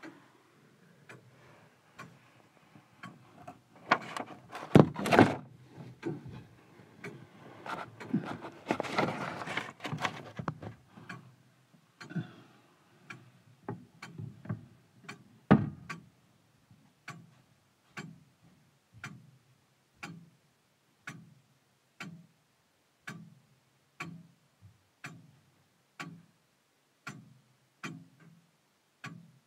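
Longcase clock ticking steadily, an even run of short ticks. Between about four and eleven seconds in, louder irregular knocks and clatter come over the ticking, with one more loud knock a few seconds later.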